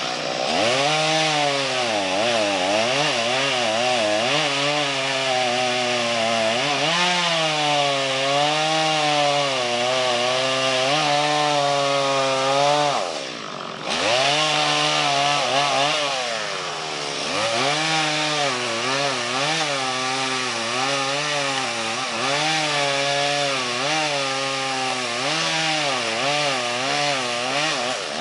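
Chainsaw cutting through a tree, its engine pitch rising and falling continuously as the chain bites into the wood and frees up. It drops off briefly about 13 seconds in, then picks up again.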